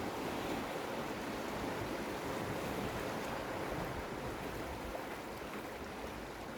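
Sea waves washing against coastal rocks, a steady wash of surf.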